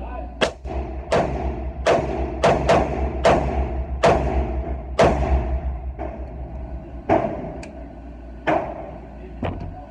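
Self-built AR-15 rifle with a 14-inch barrel firing about a dozen single shots in 5.56/.223, unevenly spaced at roughly one every half second to a second, each crack echoing in an indoor range booth.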